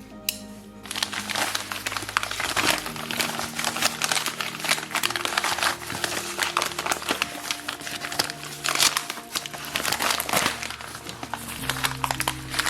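Packaging being unwrapped by hand: dense, irregular crinkling and rustling of wrapping from about a second in, over soft background music with long held notes.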